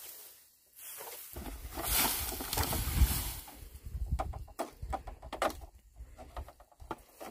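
Dry straw thatch rustling and crackling as it is handled and pulled. A heavier rustle with a low rumble beneath it starts about a second in, then gives way to a run of sharp snaps and crackles.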